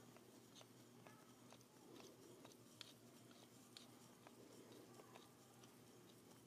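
Near silence, with a few faint, scattered small clicks.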